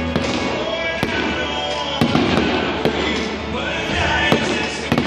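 Aerial fireworks shells bursting, with several sharp bangs about a second apart, over music playing.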